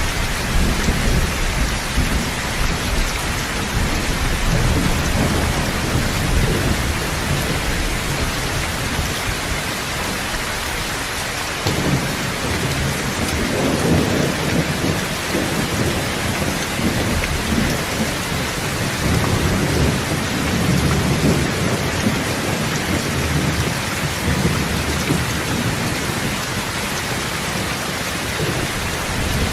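Steady heavy rain with rolling thunder rumbling low beneath it, swelling and fading several times. The rumble cuts out suddenly a little before twelve seconds in, then builds again.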